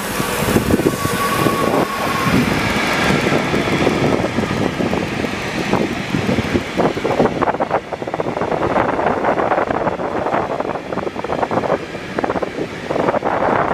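Freight train of tank wagons hauled by an electric locomotive passing close by, a continuous rolling rumble. A brief steady whine comes about a second in, and from about halfway through the wagon wheels clatter over the rail joints in quick, irregular knocks.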